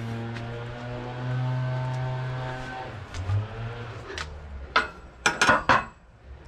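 Pickup truck engine running at a steady idle, rising slightly in level about a second in and fading after about three seconds, followed by several sharp knocks near the end.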